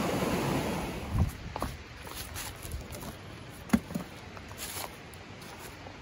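Creek water rushing and splashing into a plastic basin held down in the stream, dying away about a second in. A few short knocks follow against a quieter background.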